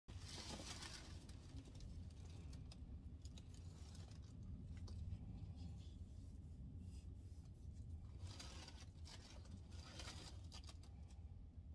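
Soft rustling of tissue paper and fabric being handled, in short bursts about a second in and again around two thirds of the way through, over a steady low hum.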